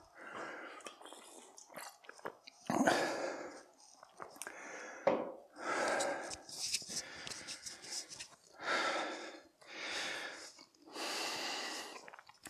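A man breathing hard and deep, one heavy hissing breath in or out every second or two, as he recovers from a 30-second all-out burst of jump squats.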